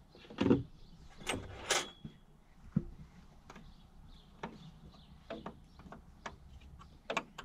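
A spanner clicking and tapping on the clutch master cylinder's mounting nuts as they are tightened, in scattered light clicks, after a thump and some rustling of handling in the first two seconds.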